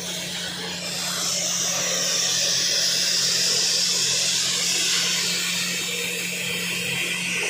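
CNC plasma cutting torch cutting a steel sheet, a strong steady hiss of the cutting arc and gas that swells in about a second in. Under it runs a steady low electrical hum from the machine.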